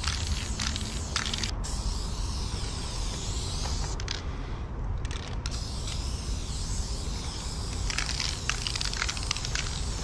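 Aerosol spray paint can (Dang Prime 400 ml black) hissing as it lays a black fill-in on a concrete wall, in short strokes near the start and end with longer steady passes between, over a steady low rumble.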